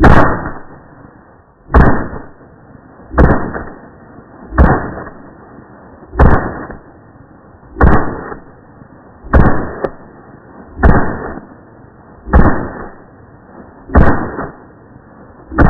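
Semi-automatic .22 LR pistol firing CCI Short Range Green rounds: eleven single shots about a second and a half apart, each followed by a short echoing tail.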